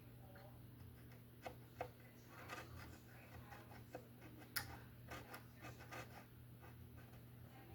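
Small chisel scraping a mandolin's wooden fretboard in faint, scattered scratches and light ticks; the crisp scratching is the sound of old grime still coming off the wood. A low steady hum runs underneath.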